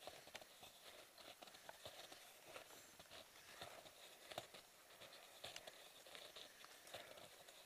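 Faint, irregular crunching and ticking of snowshoes and trekking pole tips pressing into snow, over a low steady hiss.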